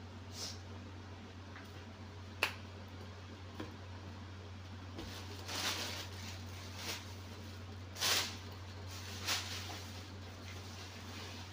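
Covered pot of seafood boil cooking under a glass lid: a sharp click about two and a half seconds in, then several short soft hisses, over a steady low hum.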